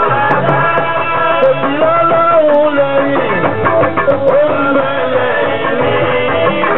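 Live party band music: a singer's wavering melody line over drum strikes and instruments.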